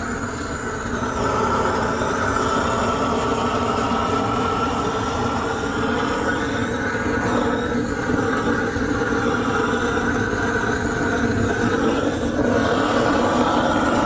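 Gas flame torch with a long wand and a perforated burner head, burning with a steady roar as its flame is played over the inside of a wooden beehive box to scorch and disinfect it.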